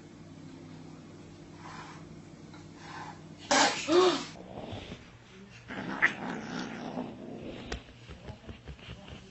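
An upset cat hisses sharply about three and a half seconds in, then at once gives a short yowl that rises and falls in pitch. The hiss is a defensive warning from a cat that has just lashed out.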